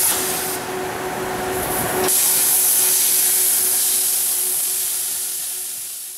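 Plasma arc of a Koike Aronson CNC plasma cutting system cutting steel plate: a loud, steady hiss with a constant hum underneath. The hiss changes character for a moment about half a second to two seconds in, then runs on and fades out near the end.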